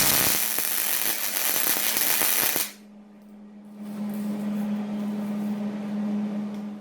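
A power tool with an abrasive disc grinding steel angle iron, its motor running with a steady hum. The grinding is loud for nearly three seconds, drops off for about a second, then goes on more lightly.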